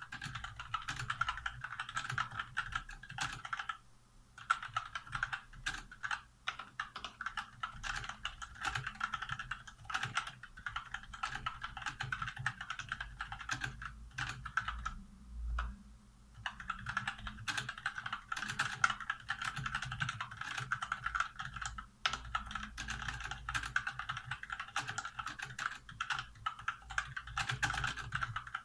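Fast typing on a Motospeed Inflictor CK104 mechanical keyboard with Outemu Red linear switches fitted with rubber O-rings that damp the keys bottoming out: a dense, continuous clatter of keystrokes. It pauses briefly about four seconds in and for over a second around the middle.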